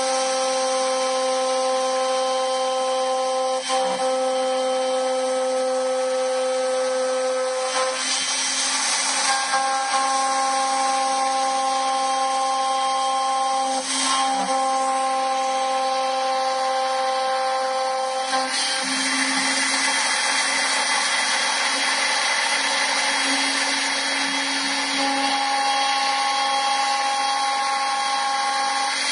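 Key-cutting machine's spindle running with a steady whine and hiss as its larger-diameter cutter mills the box side (Prox Side 2) of a Lexus Prox key blank. The pitch of the whine shifts a few times as the cut goes on, with brief breaks about 4 and 14 seconds in.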